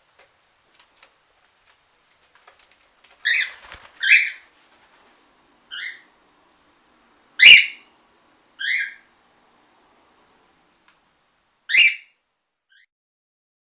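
Cockatiels giving six short, loud calls spread over about nine seconds, after a few faint clicks in the first seconds.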